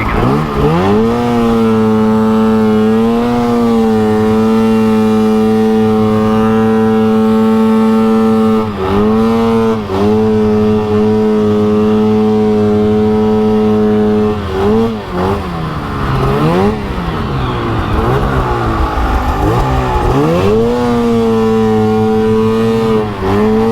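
Arctic Cat 858 two-stroke snowmobile engine running hard under load, its pitch stuck at one level for long stretches instead of climbing, with a few drops and re-revs in the middle. The engine is bogging and won't pull RPM, which the rider suspects is the exhaust valves.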